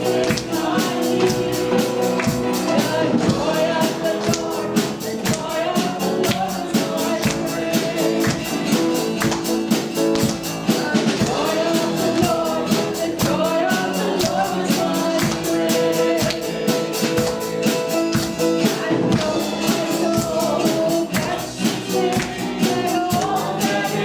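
Live worship music: a band playing with voices singing over a fast, steady percussion beat.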